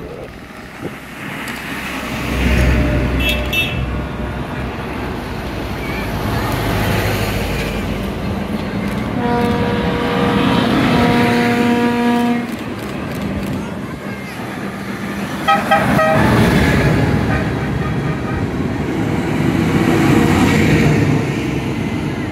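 Tractor engines running as the tractors drive past one after another. A horn is held for about three seconds midway, followed a few seconds later by a quick run of short horn toots.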